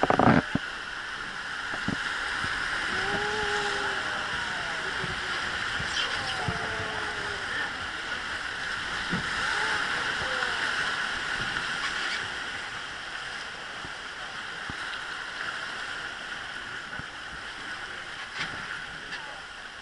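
Rushing white water of river rapids around a wooden river boat, a steady hiss that eases off in the second half as the water calms. A brief loud knock at the very start.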